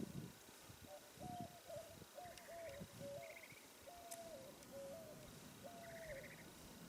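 Faint bird calls: one bird repeating a series of short whistled notes, with brief higher trills now and then.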